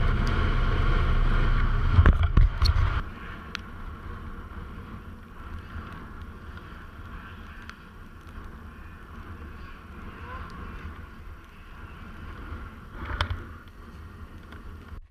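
Snowmobile engines running, at first under a loud low rumble. About three seconds in the sound drops much quieter to a thin, steady drone of snowmobiles riding in the distance, with one short louder burst near the end.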